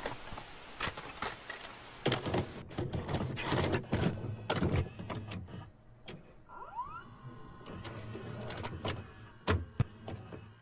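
Video cassette recorder mechanism loading a tape and starting play: a run of clunks and clicks, a motor whirring up in a short rising whine about two-thirds of the way through, then two sharp clicks near the end.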